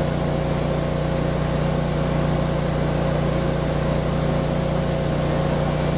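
Heavy construction machinery engine running at a steady speed: a constant low drone with a steady higher whine above it.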